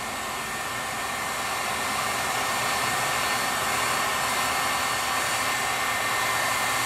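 Handheld heat gun blowing hot air steadily, with a faint high whine over the rush of air, growing a little louder in the first couple of seconds. It is heating one half of a motor shaft coupler so it expands enough to slide onto the electric motor's shaft.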